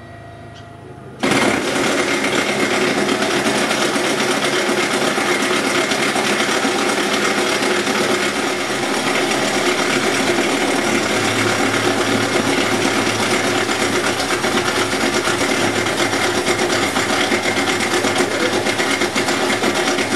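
A power tool starts suddenly about a second in and then runs steadily and loudly, with a fast, even chatter.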